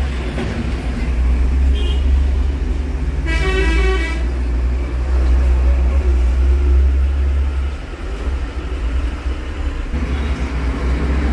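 Street traffic: a large vehicle's engine rumbles low and steady, then eases off near the end. A horn sounds once, for about a second, some three seconds in.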